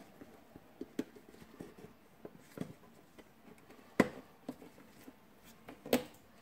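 Scattered sharp clicks and knocks of a cordless drill's motor being handled and pressed into its plastic housing half, with two louder knocks about four seconds in and near the end.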